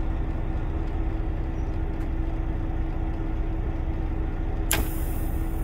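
Kenworth T680 truck's diesel engine idling steadily, heard inside the cab with a constant hum. Near the end, a sharp clack from the 12 V push-pull solenoid of the idle-override timer as it snaps over to reset the engine-shutdown timer.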